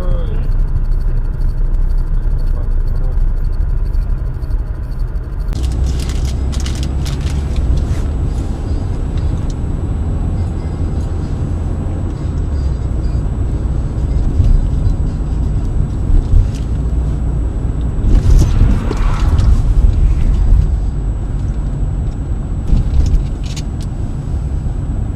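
Road and engine rumble of a moving vehicle heard from inside the cab through a dashcam microphone. Scattered clicks and knocks run through it, with a louder stretch of knocks about two-thirds of the way through. The sound changes abruptly about five seconds in, where one recording cuts to another.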